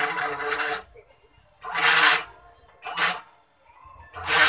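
DIY 3D printer's scrap photocopier stepper motors driving the axes along drawer-slide rails in short moves that start and stop, giving a steady whirring hum with a hiss over it. There are four runs, the last starting near the end.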